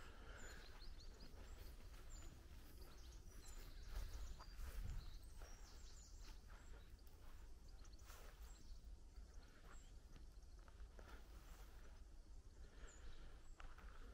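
Quiet outdoor ambience: faint, scattered high chirps of small birds over a low, steady rumble that swells briefly about four to five seconds in.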